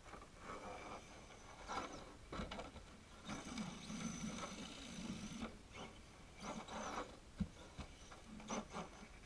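Radio-controlled crawler truck's motor and gears whining in stop-start throttle bursts as it claws up a dirt bank, the longest burst about three to five seconds in, with its tyres scrabbling on loose dirt.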